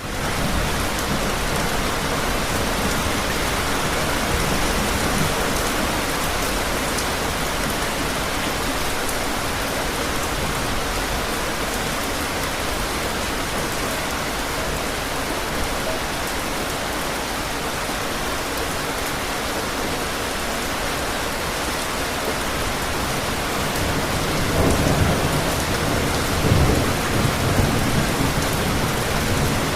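Steady heavy rain falling, with low rolls of thunder. The louder thunder rumbles come about three-quarters of the way through.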